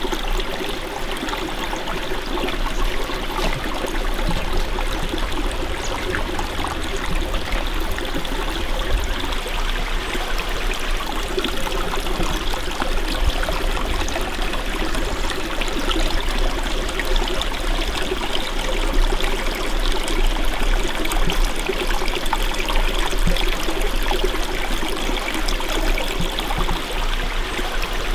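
A small stream running steadily over rocks, a continuous trickling of water.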